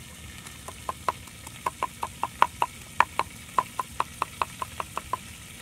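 Cleaver chopping peeled garlic cloves on a round wooden chopping block: about twenty sharp knocks, first a few spaced out and then a steady run of about four a second, stopping about five seconds in.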